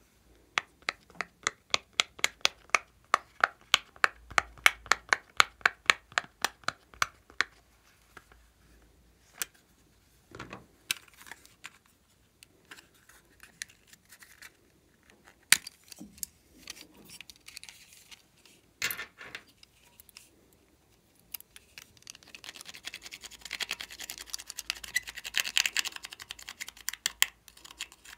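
Silicone pop-it fidget toy's bubbles being pressed through one after another, a fast run of sharp pops about four a second for the first seven seconds or so. Scattered clacks follow as a plastic toy makeup case is handled. Near the end comes a dense scratchy scraping as pressed eyeshadow is dug out of the case with a small tool.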